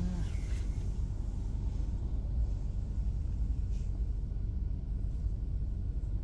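Steady low rumble heard inside a car's cabin, the car's engine idling while it sits stopped in traffic.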